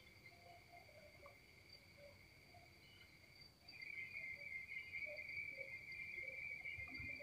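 Faint, steady high-pitched trill in the background, getting louder about halfway through.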